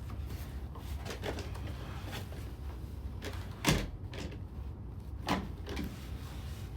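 Handling knocks and small clicks, with two sharper clunks about a second and a half apart near the middle, over a steady low hum.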